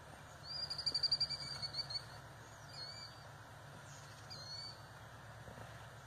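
A songbird singing: a rapid high trill lasting about a second and a half, then two short slurred chirps.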